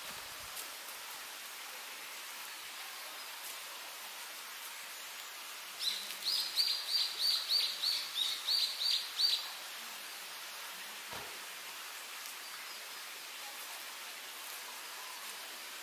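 A bird singing a run of about a dozen quick, high repeated notes, about three a second, for some three seconds midway. Under it is a steady outdoor hiss of forest ambience.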